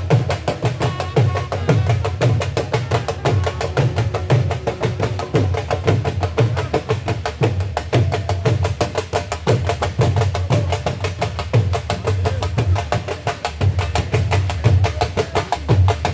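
Dhol drumming: a fast, dense stream of sharp stick strokes over a regular deep bass beat, played without pause.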